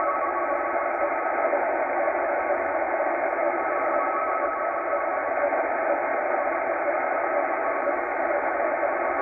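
Tecsun H-501X shortwave receiver playing a NAVTEX data signal through its speaker: a steady hiss filling the receiver's narrow audio band, with faint steady data tones buried in it. The signal is too noisy to decode.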